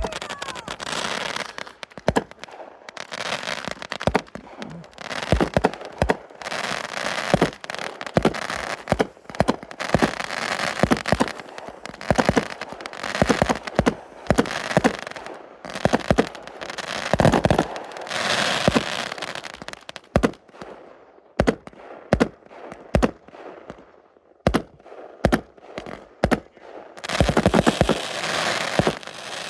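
Consumer fireworks going off: a continual string of sharp bangs, some single and some in quick volleys, with fizzing and crackling between them.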